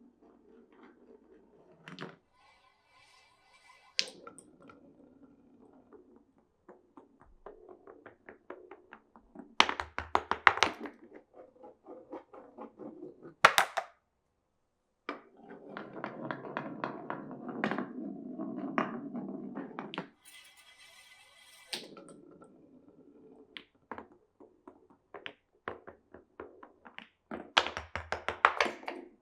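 Glass marbles running through a wooden marble run. The rolling rumbles along the wooden track and rails, longest from about halfway to two-thirds of the way through. Sharp clacks come as marbles drop and strike the wood and each other, loudest in a few clusters.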